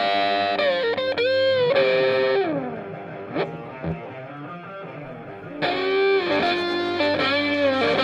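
Background music led by a distorted electric guitar playing a melody with bent notes. It drops back for a few seconds in the middle and comes in loud again after about five and a half seconds.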